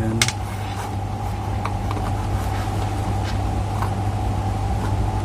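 Steady machine hum, like a fan or air-conditioning unit running, with a few faint light clicks from handling small parts.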